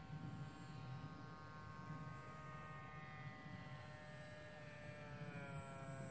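Mini Funtana radio-controlled model airplane flying, its motor and propeller making a faint, steady buzzing whine that drops in pitch about five seconds in.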